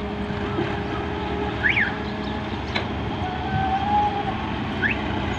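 Diesel engines of a Volvo EW130 wheeled excavator and farm tractors running steadily while the excavator loads soil into a tractor trolley. Two short high chirps come through, and there is a single click in the middle.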